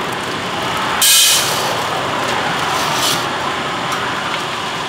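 Bideli 2 kg propane drum coffee roaster running with a steady noise while it preheats empty. About a second in a plastic bag crackles briefly as it is opened and tipped over the hopper, with a few lighter rustles after.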